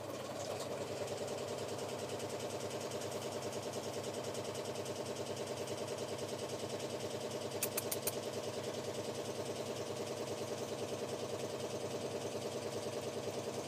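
Domestic cat purring steadily, close to the microphone, while it eats, with a few sharp clicks about eight seconds in.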